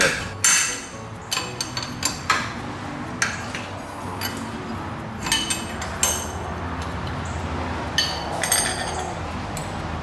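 A wrench working the forcing screw of an OTC gear puller on a tractor crankshaft pulley: irregular sharp metallic clinks and taps with a short ring. The wrench gets only about a third of a turn per swing in the cramped space, so it is reset again and again.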